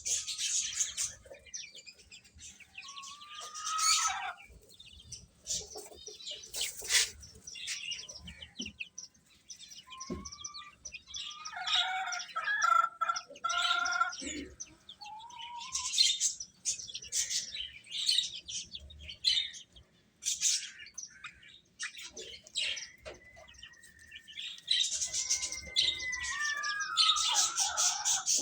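Chicks peeping: many quick, high chirps, with now and then a lower, drawn-out call that slides in pitch, one falling call near the end.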